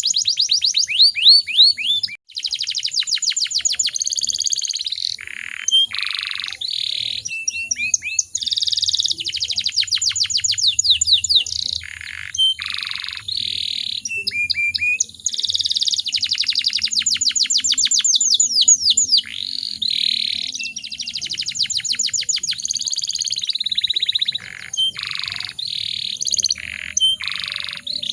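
Domestic canary singing a long song of fast trills and rolls, runs of quickly repeated sweeping notes, broken into phrases by short pauses.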